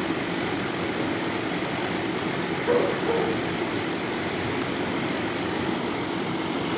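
Steady rushing noise of kennel ventilation, with two short distant dog yelps about three seconds in.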